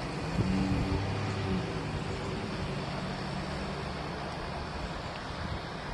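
Low rumble from the sky building back in, over the steady noise of an air conditioner. A low droning tone comes in about half a second in and fades over the next few seconds.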